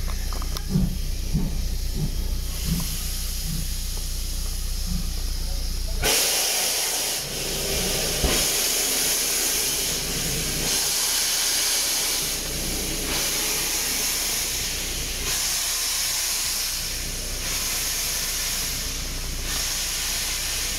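Steam tank locomotive 80136 passing at close range. At first there is a low rumble with soft, regular beats. About six seconds in, a loud hiss of escaping steam starts suddenly and keeps going, swelling and easing every couple of seconds as the engine and its coaches go by.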